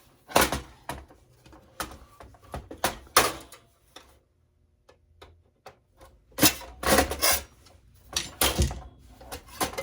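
Irregular metal clicks, clanks and rattles of a desktop computer power supply being handled and pried apart by hand. There is a short pause near the middle, then a cluster of louder knocks.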